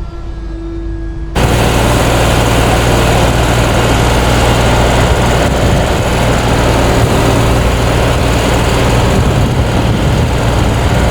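A truck's diesel engine running steadily at raised revs to power a Kennis loader crane's hydraulics: loud and even, with a constant low hum. It cuts in abruptly about a second and a half in, after a quieter steady hum.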